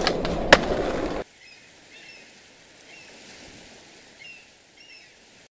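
A loud, even rushing noise like running water, with one sharp click about half a second in, cuts off abruptly a little over a second in. It leaves a faint hiss with a few short, high, bird-like chirps.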